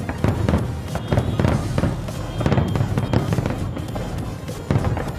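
Fireworks display: aerial shells bursting in a rapid, irregular series of deep booms with crackle, over music.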